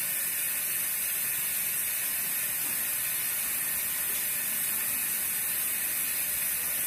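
Steady hiss of water running from a kitchen tap into a sink.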